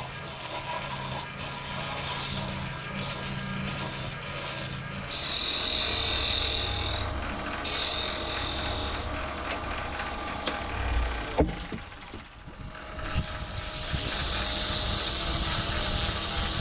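Midi wood lathe running while a gouge cuts a spinning mahogany lid, throwing shavings, with a steady hum under the cutting; the cutting eases off for a while with a few sharp clicks. Near the end sandpaper hisses against the turning wood.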